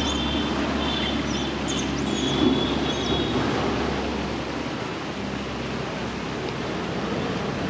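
Steady outdoor rushing noise with a low hum underneath. High thin chirps and whistles come and go through the first three seconds or so.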